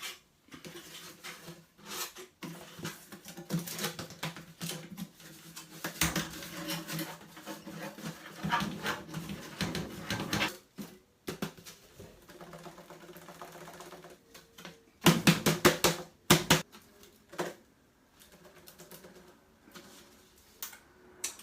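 A metal dryer vent part being handled and cleaned of lint by hand: an irregular run of clicks and rattles, with a quick burst of rapid taps about fifteen seconds in.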